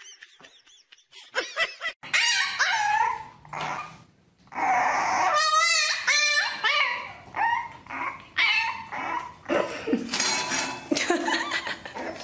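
French bulldog puppy yipping and whining, starting about two seconds in: a quick string of short high calls that bend in pitch, one with a quavering wobble near the middle.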